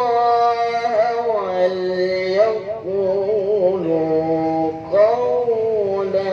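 A man's unaccompanied voice chanting Qur'an recitation (tilawah) in a long, ornamented, melismatic phrase. The pitch steps downward with trills and wavering turns. It breaks briefly about five seconds in, then rises into a new phrase.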